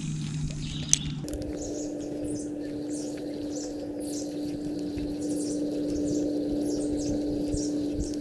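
Spinning reel being cranked at a slow, steady pace during a lure retrieve: a steady whirring hum with a short high squeak about twice a second, once per turn of the handle. The whirr starts about a second in.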